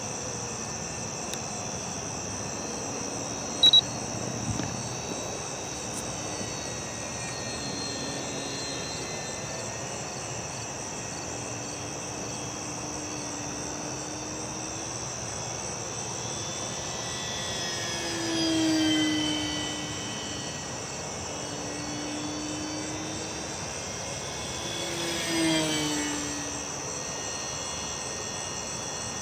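Electric motor and propeller of an FMS Firefly RC plane flying overhead, its whine gliding up and down, with two louder passes in the second half where the pitch falls away. Crickets chirp steadily under it, and there is one sharp click about four seconds in.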